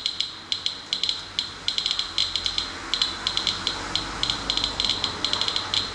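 Inspector handheld Geiger counter clicking in quick, irregular clicks, several a second. It is counting around 550 counts per minute from a rainwater sample, well above the 112 CPM background, which is most likely radioactivity from radon rain-out.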